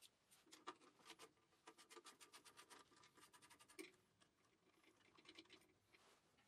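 Faint scratching and light clicks of hands working at the base of a small engine, handling its wiring. The clicks come thickest in the middle, with one slightly louder click a little past halfway.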